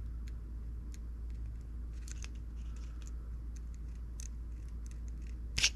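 Faint small plastic clicks and fingernail scratches as fingers work a tiny battery connector plug out of its socket on a Bluetooth headset's circuit board, with one sharper click near the end as the plug comes free. A steady low hum runs underneath.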